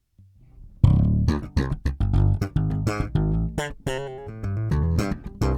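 Electric bass guitar playing a line of plucked notes through a bass amp, starting about a second in, with a quick run of short notes midway. This is the dry signal with the compressor pedal bypassed.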